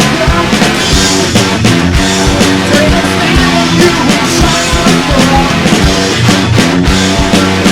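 Rock band recording with electric guitar and drum kit, the drums hitting on a steady beat.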